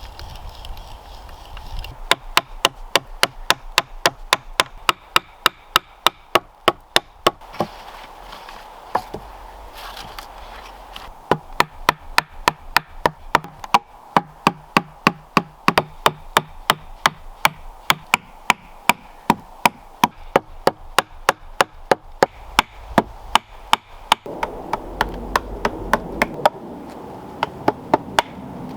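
A hand tool striking wood in quick, even blows, about four a second, in two long runs with a pause between them: wood being chopped or hammered.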